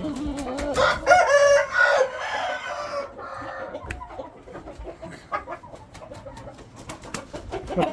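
A rooster crows once, about a second in, a call lasting a little over a second. Fainter clucking and scattered light clicks and taps follow.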